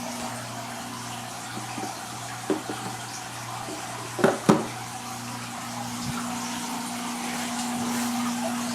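Saltwater aquarium water circulating with a steady electrical hum from its pumps, broken by two sharp clicks about four and a half seconds in.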